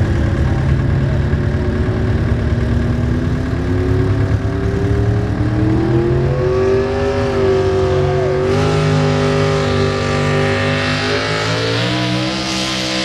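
Pulling truck's engine running hard under load against a weight-transfer sled. Its pitch climbs steadily, then shifts suddenly about two-thirds of the way through and again near the end.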